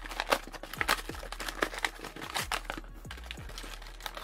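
Clear plastic blister packaging being handled, crinkling with many sharp clicks and crackles.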